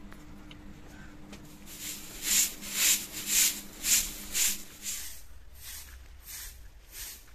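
Hand-held grass broom sweeping in brisk swishes, about two a second, loudest over a floor mat, then softer strokes over packed earth from about five seconds in.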